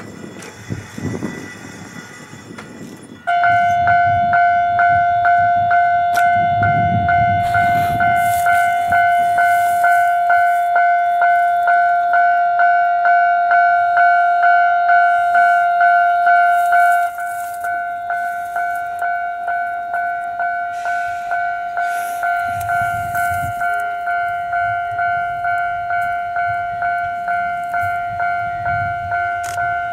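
Level-crossing warning bell ringing, starting suddenly about three seconds in: a steady two-pitch electronic clang repeating about twice a second, a little quieter from halfway on. Under it, the low rumble of an Ohmi Railway electric train, which starts to pull out of the station near the end.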